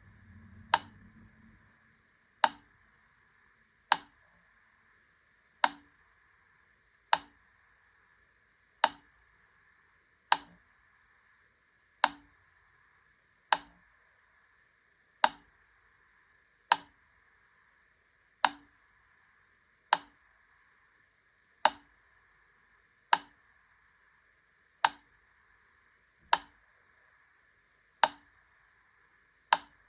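Wittner Taktell Piccolo mechanical metronome ticking slowly and evenly, one sharp tick about every 1.6 seconds.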